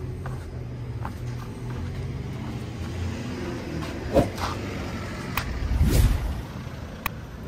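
A motor vehicle's engine running with a steady low rumble, swelling louder about six seconds in as it comes close. A few light clicks sound over it.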